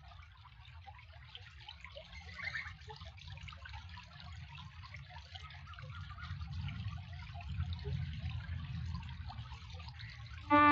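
River water lapping and trickling at the water's edge, faint and uneven, over a low rumble. Piano music comes in abruptly right at the end.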